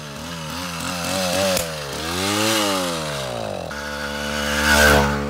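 Small 5 HP two-stroke engine on a motorized bicycle running under way, its pitch rising and falling several times as the throttle is worked, with the loudest moment about a second before the end.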